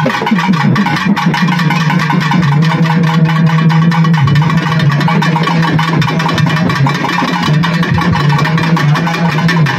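Loud music: one low note held steadily for most of the stretch, over fast, dense percussion.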